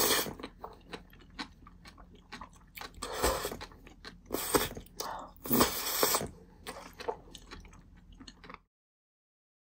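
Close-miked mukbang eating sounds: several loud slurps of spicy jjolmyeon noodles with bean sprouts, with wet chewing and mouth clicks in between. The sound cuts off abruptly to silence near the end.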